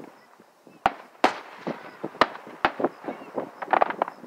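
Aerial firework shells bursting: a string of sharp bangs, about four in the first three seconds, then a quick cluster of pops near the end.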